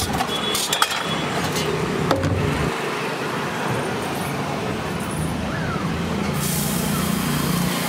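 Steady street noise with traffic. There are two sharp metal clinks of cooking utensils, about one and two seconds in, and a hiss that starts suddenly about six seconds in.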